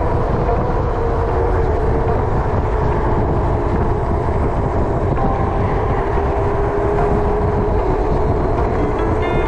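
Wind rushing over the microphone of a moving e-bike, a steady heavy rumble, with a faint wavering whine from the bike's electric motor underneath. A brief high chirp sounds just before the end.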